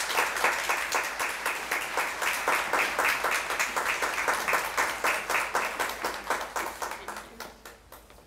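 Audience applauding after a speech, with many individual claps distinct; the clapping tapers off and fades near the end.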